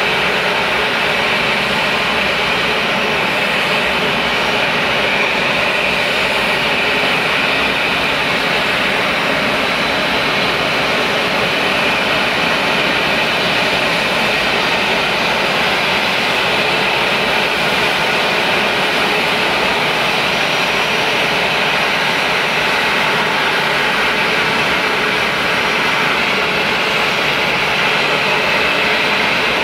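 Boeing 737-800's two CFM56-7B turbofan engines running at taxi thrust: a loud, steady jet whine and rush as the airliner starts to taxi.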